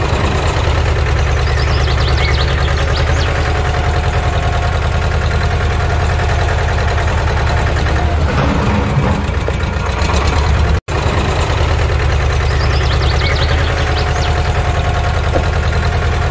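Engine running at a steady idle, a recorded sound effect that breaks off for an instant about eleven seconds in and starts over.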